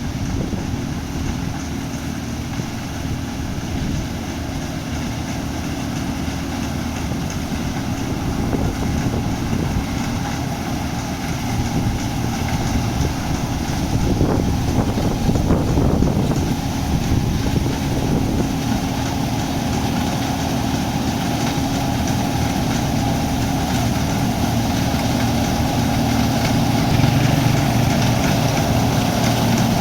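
Combine harvester running with a steady engine drone, growing a little louder about halfway through and again near the end.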